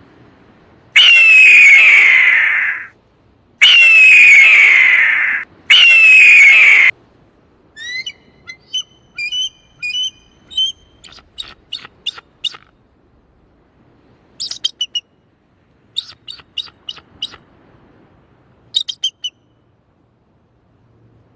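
Eagle giving three long, loud screams, each sliding down in pitch, followed by groups of short, high chirps and quick trills.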